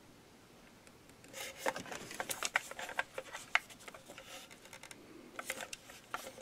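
Hands handling a plastic B9 robot toy: a faint run of small clicks and rubbing scrapes of plastic, starting about a second in.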